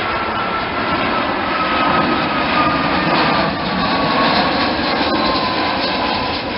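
Airbus A320-200 jet airliner passing low on final approach, its engines giving a steady roar. A whine in the engine sound slowly drops in pitch as it goes by, and the roar is loudest in the middle.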